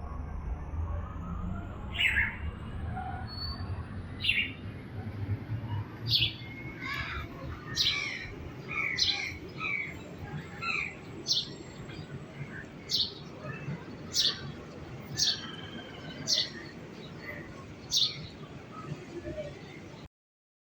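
A small bird chirping repeatedly in short, sharp, high chirps about once a second over a low steady background noise. The sound cuts off suddenly just before the end.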